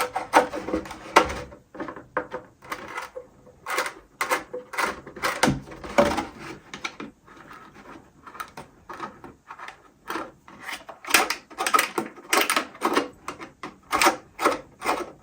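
A tool used as a reamer scraping and clicking in freshly drilled holes in a polycarbonate (Lexan) RC car body, cleaning off the leftover plastic: irregular sharp clicks and short scrapes.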